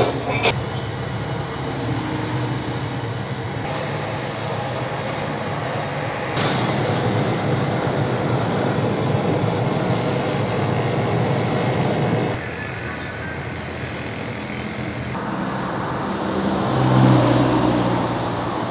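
Steady mechanical rumble and hiss with a low hum, opening with a few clicks. The rumble changes abruptly in level several times, and the hum swells near the end.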